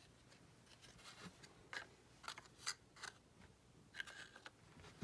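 Faint rustling and light taps of baseball trading cards being handled and stood up on a wooden desk, a few short scattered sounds.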